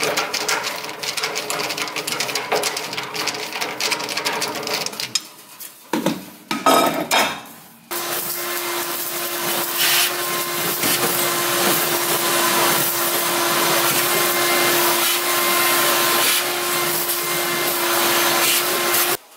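Vacuum cleaner running with its hose in a wood cook stove's soot cleanout. For the first few seconds it crackles as soot and grit rattle up the hose, then come a few knocks of the hose against the opening. After that it hums steadily and cuts off suddenly near the end.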